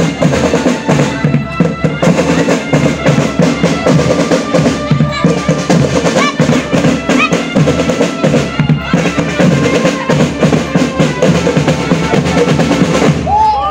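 Marching drum band playing: snare drum rolls over a steady bass-drum beat, with a few held melody tones above. The drumming stops shortly before the end and voices take over.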